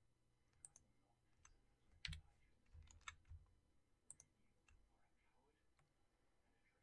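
Faint, irregular clicks of a computer mouse and keyboard keys, about a dozen, busiest between about two and four and a half seconds in.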